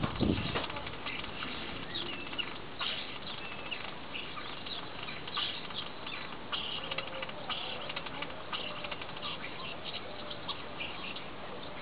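Common starling singing: a long, rambling run of clicks and short whistled notes. A brief low thump sounds right at the start.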